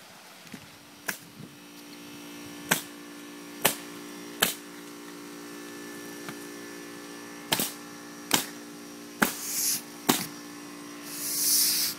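A steady hum with about eight sharp knocks at irregular intervals, and two brief hissing scrapes near the end.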